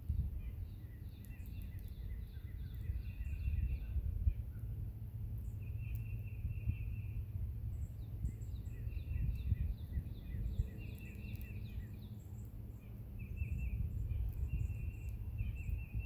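Songbirds singing and calling: bouts of quick, repeated high notes every few seconds, over a low rumble.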